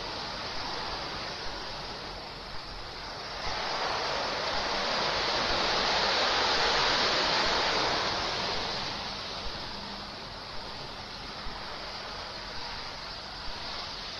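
Ocean waves surging and breaking on a rocky shore, swelling louder about four seconds in and easing off again a few seconds later.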